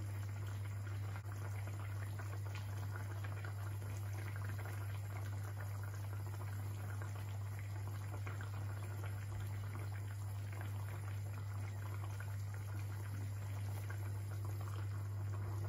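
Thick tamarind fish curry bubbling at a boil in a wide pan, with faint soft pops, over a steady low hum.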